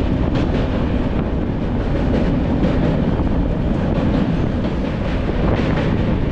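Express passenger train running on the rails: a steady, loud rumble of wheels and coaches with faint, irregular clicks.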